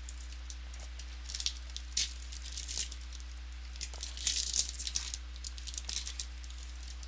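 Trading cards and pack wrappers being handled: irregular short bursts of papery rustling and crinkling, busiest about four seconds in.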